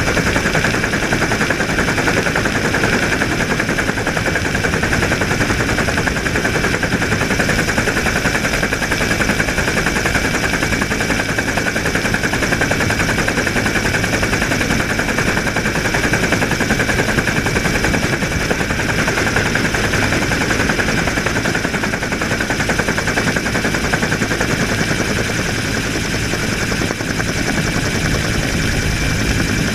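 Search and rescue helicopter in flight heard from its open door: a loud, steady, rapid rotor chop under a high, steady engine whine.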